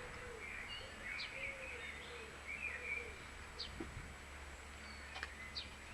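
Faint birdsong: scattered chirps and warbling calls, with a single short click near the end.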